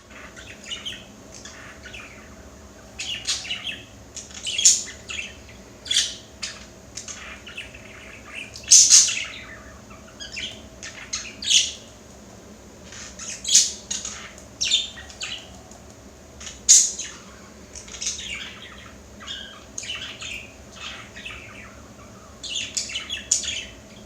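Budgerigar chattering at its own reflection in a mirror: a string of irregular short chirps, squawks and warbles, with a louder squawk about nine seconds in.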